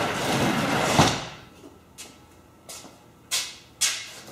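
Sectional overhead garage door rolling down on its tracks and banging shut against the floor about a second in, followed by a few short scuffs and knocks.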